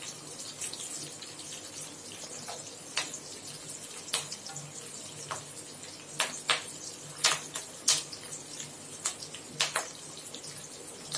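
Sliced onions and curry leaves frying in oil in a kadai: a steady low sizzle with scattered sharp crackles and pops, more frequent in the second half. The onions are being sautéed only until they begin to change colour.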